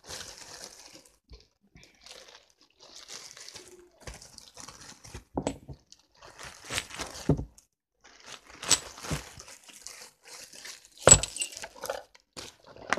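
A clear plastic bag crinkling and rustling as it is handled, with several sharp knocks in between, the loudest near the end.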